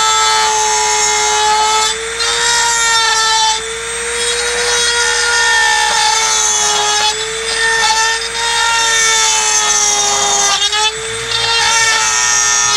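Dremel rotary tool with a carbide cutter running at a steady high whine while it cuts out an opening. The pitch dips a little each time the bit bears into the material, with a gritty cutting rasp underneath.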